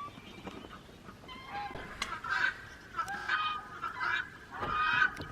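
A flock of ducks and other fowl quacking and calling, repeated nasal calls that begin about a second and a half in and overlap more thickly toward the end.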